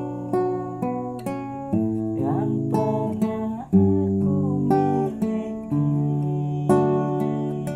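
Classical nylon-string guitar being played: a melody of individually plucked notes over ringing bass notes, with a few notes bent or slid about two to three seconds in.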